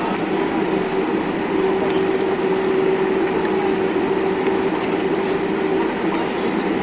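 Boeing 747-400 jet engines running steadily, heard inside the passenger cabin as the aircraft taxis: an even rushing hum with a steady low tone through it.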